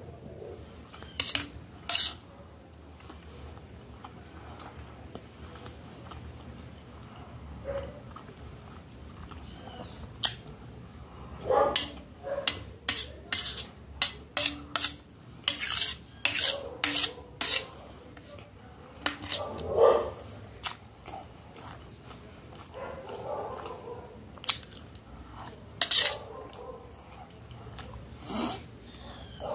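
Metal spoon clinking and scraping against a stainless steel plate while scooping up rice, in many short sharp clicks at an uneven pace, thickest in the middle of the stretch.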